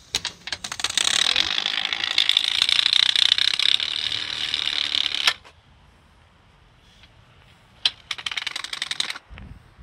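A playing card taped to the frame of a 16-inch BMX bike, flapping against the spokes of the spinning rear wheel: separate clicks that quickly run into a fast clattering rattle, the old trick to make a bike sound like a motorbike. It stops suddenly after about five seconds, and a second, shorter run of clicks comes near the end.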